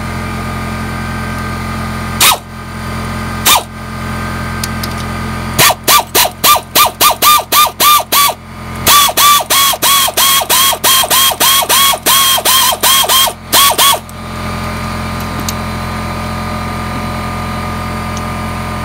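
Hand ratchet clicking as a spark plug thread-repair tap is turned into the blown-out plug hole of an aluminium cylinder head: a few single clicks, then two runs of about four clicks a second, over a steady motor drone.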